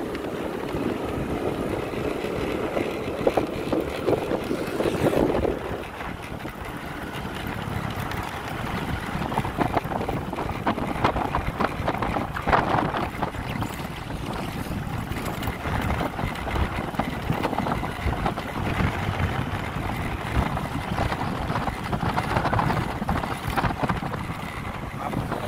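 Wind buffeting the microphone on a moving motorcycle, mixed with the motorcycle's steady engine and tyre noise.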